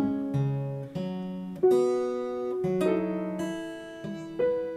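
Acoustic guitar and grand piano playing together: sparse notes and chords struck about once a second and left to ring.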